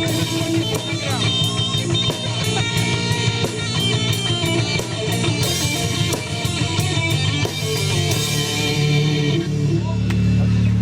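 Live rock band playing: guitars and a drum kit with a steady hi-hat beat, turning to cymbal washes and a held low chord over the last few seconds.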